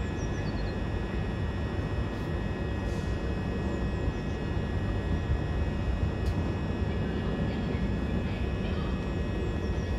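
Electric multiple-unit train standing at a platform, its onboard equipment running with a steady hum: a low rumble under several steady high whines.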